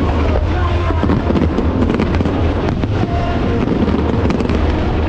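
Aerial fireworks display: dense, overlapping crackles and pops from exploding shells, over a steady low rumble.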